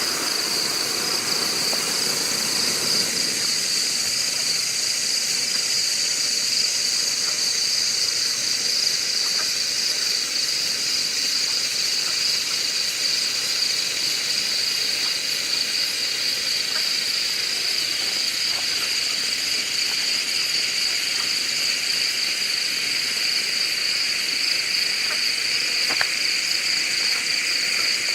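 Red pyrotechnic hand flare burning with a steady, unbroken hiss.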